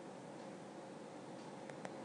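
Faint steady hiss of room tone and microphone noise, with a faint hum under it and two quick light clicks close together near the end.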